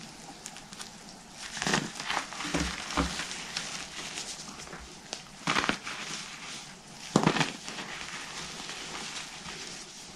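Hands squeezing and crumbling gym chalk reforms coated in shaving foam: soft crunching and squishing, dulled by the foam, with louder crunches about two seconds in, near the middle and about seven seconds in.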